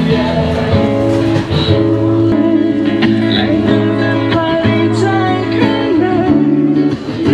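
Live music: a man singing along to a strummed acoustic guitar, played through a PA speaker.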